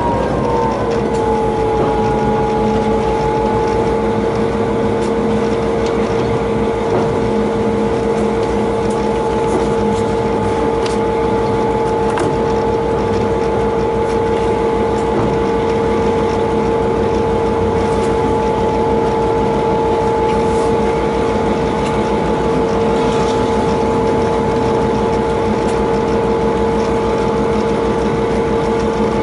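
DQ class diesel locomotive hauling a loaded ore train: a steady engine drone with a prominent whine that drops in pitch in the first second or so and then holds level, over a constant low rumble with a few faint clicks.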